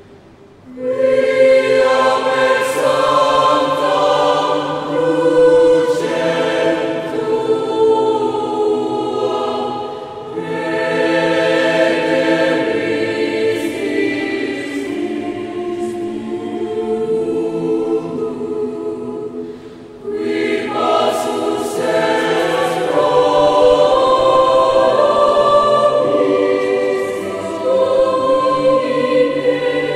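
A mixed choir singing in several parts, in long held phrases that come in about a second in, with short breaks between phrases around ten and twenty seconds in.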